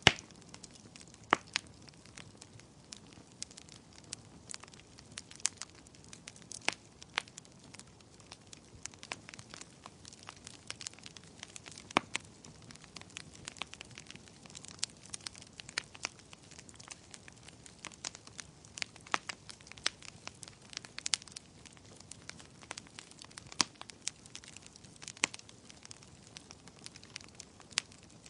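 Wood fire crackling: a soft steady hiss with frequent sharp, irregular pops and snaps.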